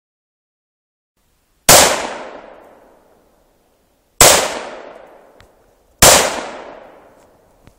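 Three shots from a Russian Tigr, the civilian Dragunov semi-automatic rifle, about two and a half and then two seconds apart, each echoing and dying away over about a second and a half. Faint ticks follow the second and third shots.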